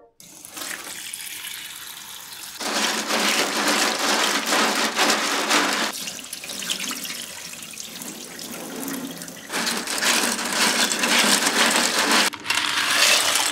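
Tap water running into a stainless steel bowl of Manila clams in a sink while a hand rubs and washes the shells. The water grows louder about two and a half seconds in, eases off around the middle, and swells again for a few seconds before easing near the end.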